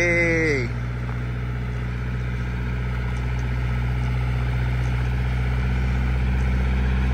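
Farm tractor's diesel engine running at a steady low drone while towing a small travel trailer at walking pace, growing slightly louder.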